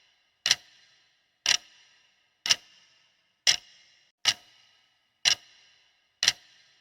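Clock-tick sound effect of a quiz countdown timer: single sharp ticks about once a second, each with a brief metallic ring, seven in all.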